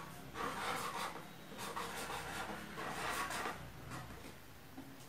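Red coloured pencil writing the word "mamá" on a sheet of paper: a scratchy rubbing of pencil strokes in three spells of about a second each, dying away after about three and a half seconds.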